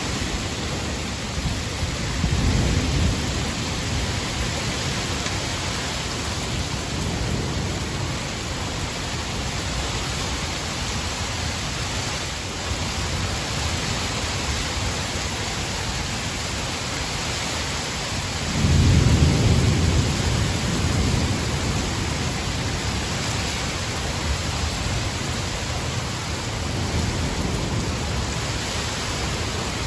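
Steady heavy rain hissing, with rolls of thunder rumbling low through it, the loudest about two-thirds of the way in.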